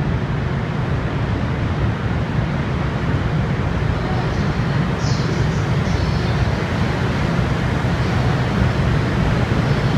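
EF510 electric locomotive hauling a train slowly into a terminal platform: a steady low rumble, with a brief high-pitched squeal about five seconds in.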